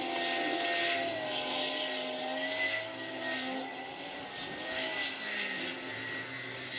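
Heavy diesel machinery working together: a gut ship's grab crane and a Kawasaki 90ZV wheel loader, the engine note rising and falling as they lift and push, over a steady high whine.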